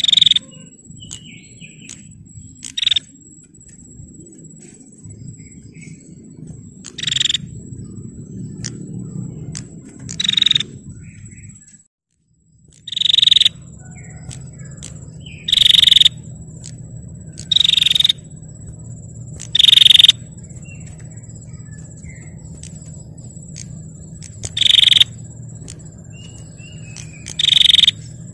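Female prinia (prenjak) giving short trilled 'ngetir' calls, each about half a second long and repeated every few seconds, about ten in all, over a steady low hum and a thin high whine. The calls are a lure meant to provoke a male prinia into calling. The sound drops out briefly about twelve seconds in.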